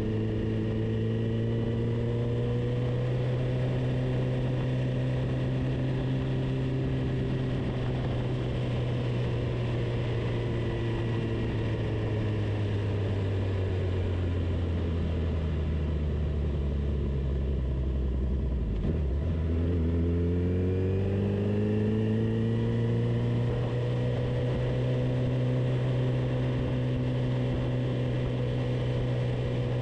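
Car engine running hard while lapping a circuit, its pitch holding, then sinking slowly for several seconds. It dips sharply about two-thirds of the way through, then climbs back up and holds, over a steady rush of road and wind noise.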